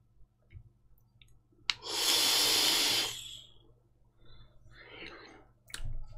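A person vaping on an e-cigarette: a click, then a long loud breathy hiss of the drag and exhaled vapour, followed by a fainter second breath out.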